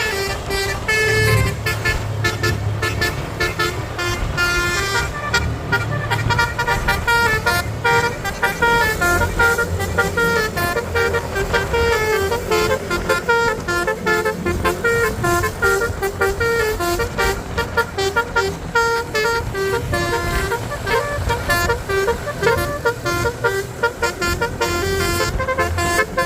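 Basuri multi-tone bus horn (telolet horn) playing a melody: a fast run of short pitched notes stepping up and down without pause, with a low steady sound underneath.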